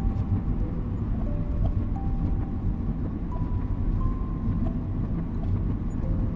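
Steady low rumble of a car driving, engine and road noise, with a soft, slow melody of single held notes over it.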